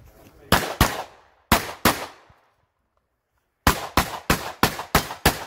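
Pistol shots fired in quick pairs: two double-taps about a second apart, then, after a short pause, six rapid shots at roughly three a second near the end.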